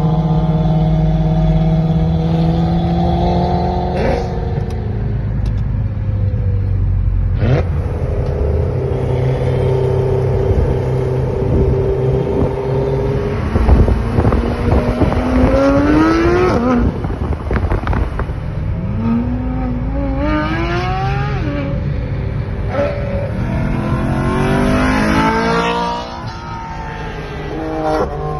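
Several sports car engines accelerating in repeated climbs of rising pitch over steady engine and road rumble, heard from inside a moving car's cabin. The sound drops in loudness near the end.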